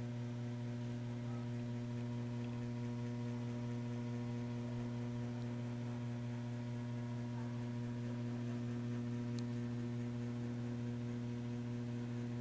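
Steady electrical mains hum with several overtones, unchanging throughout, with a faint tick about nine seconds in.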